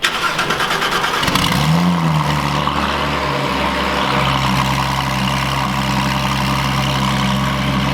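Porsche 911 GT3 RS flat-six with aftermarket headers and exhaust cold-starting: it fires with a sudden bang, flares up in revs and falls back about two seconds in, then settles into a steady idle. It is really loud, louder than stock.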